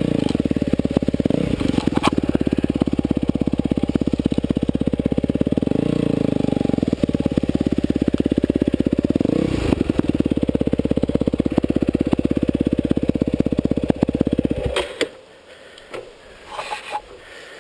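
Yamaha WR250F dirt bike's single-cylinder four-stroke engine running at low revs as it creeps through brush, its pitch rising briefly a few times, then cutting off suddenly about fifteen seconds in. A few faint clicks and rustles follow.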